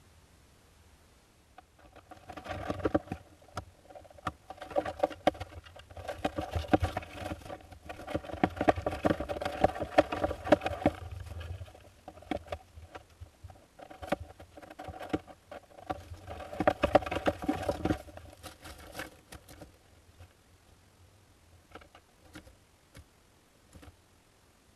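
Hoopoe chicks scrabbling and fluttering inside a wooden nest box: rapid scratching and tapping in several bursts, the longest and loudest in the middle, then a few scattered taps near the end.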